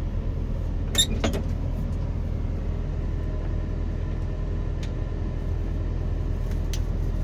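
Excavator's diesel engine running steadily at a low, even rumble, with two sharp clicks about a second in.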